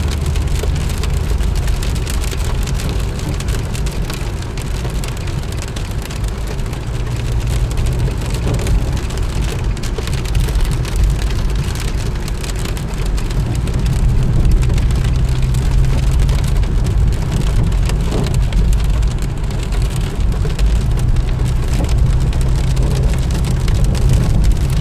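Heavy rain falling on a car's windscreen and body, heard from inside the cabin, with many fine drop impacts. Under it runs the steady low rumble of the car driving on a wet, flooded road.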